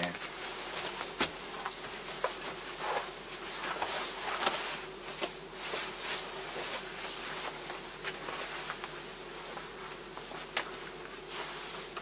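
Silk kimono fabric rustling and brushing as the garment is handled and put on, with a few faint knocks. A steady faint hum sits underneath.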